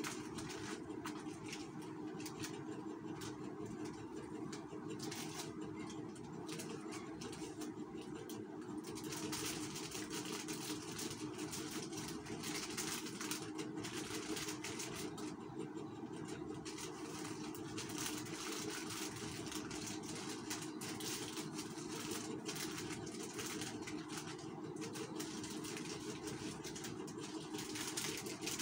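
Steady low mechanical hum, with irregular crinkling of plastic snack-sachet strips as they are handled and hung on the wall.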